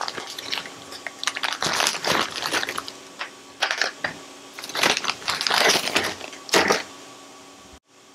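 Clear plastic zip-lock bag crinkling as it is opened and rummaged through, with the metal split key rings inside it clinking against one another, in several irregular bursts.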